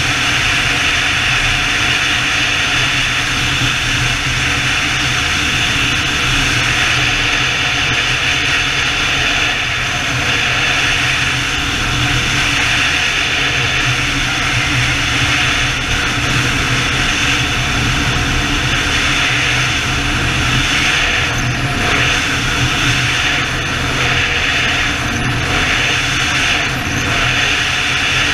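BMW touring motorcycle cruising at steady speed: a constant rush of wind and road noise over the low drone of its engine, with a few brief gusts in the second half.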